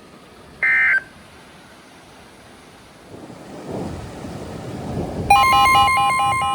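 A short electronic tone burst just under a second in, then a rising rush of noise. From about five seconds in a loud weather radio alert tone sounds: a steady high beep with other tones pulsing on and off around it.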